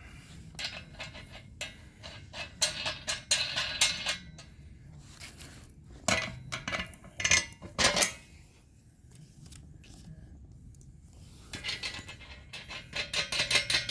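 Steel nuts, washers and bolts clinking and rattling against each other and the tow bar bracket as they are fitted onto the mounting bolts, in three spells of jingling.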